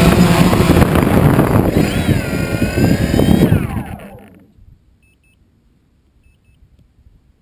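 Quadcopter drone's electric motors and propellers running with a wavering whine, then spinning down with a falling whine and stopping about four seconds in, the drone landed on the ground.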